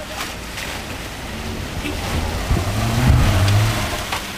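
Suzuki four-wheel-drive's engine pulling through a stream ford with water splashing around it, then revving up under load as it climbs out up the bank, loudest about three seconds in before easing off near the end.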